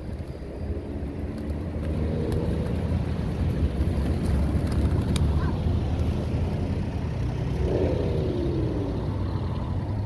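Motor vehicle traffic running nearby: a low, steady rumble that grows louder after the first second or so, with a falling tone near the end.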